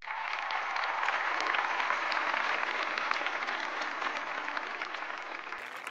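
Audience applause that starts suddenly as the dance ends, a dense patter of many hands clapping that eases off a little toward the end.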